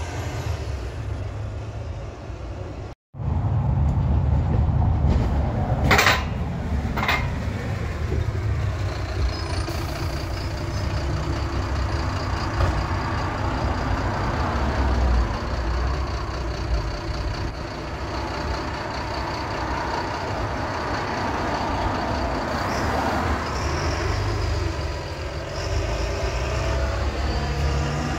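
City bus engine running close by, a steady low engine sound with passing street traffic. Two sharp knocks come about six and seven seconds in, and the sound cuts out for a moment shortly before them.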